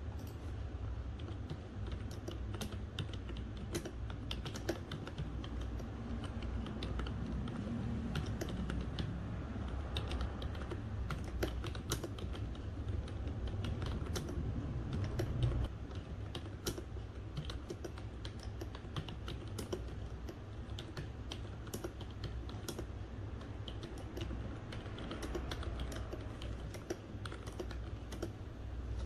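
Typing on a Zoook Prodigy wireless keyboard: irregular runs of key clicks throughout, over a steady low hum.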